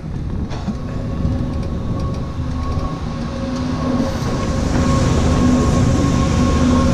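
Chairlift terminal machinery and haul rope running over the sheaves: a steady mechanical rumble with a constant whine. From about four seconds in, a snowboard sliding on snow down the unloading ramp adds a louder hiss.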